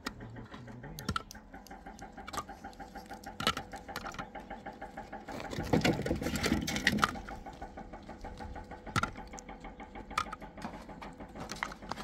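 A small machine or motor running steadily with a fast, even rhythm, broken by a few sharp clicks and a louder, rougher stretch about six seconds in.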